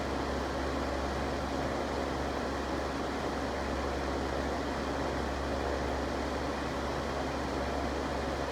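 Electric fan running steadily, a constant whir of moving air with a low hum underneath.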